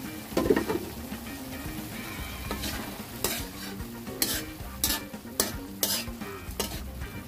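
A ladle stirring pork cubes sautéing in a wok, over a light sizzle. From about three seconds in, the ladle scrapes against the pan in a run of short strokes roughly half a second apart.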